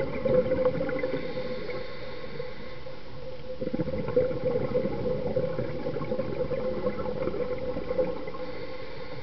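Underwater sound of a scuba dive: a diver's regulator exhaling, with bubbles gurgling out in bursts a few seconds apart over a steady hum.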